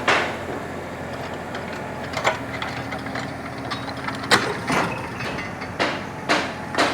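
Mini Kubota's engine running steadily, with irregular sharp knocks, about seven of them, the loudest a little past the middle.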